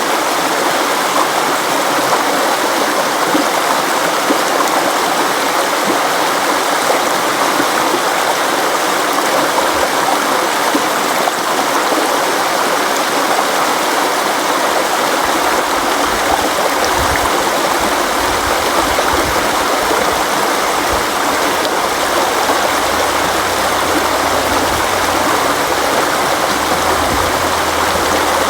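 River water flowing steadily, a constant rushing noise with no breaks. About halfway through, a faint low rumble joins it underneath.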